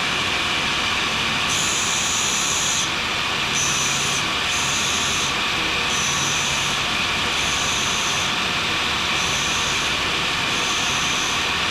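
Grinder running steadily while a carbide scraper is sharpened on its wheel. The high grinding hiss of the carbide against the wheel comes and goes in repeated passes, starting about a second and a half in.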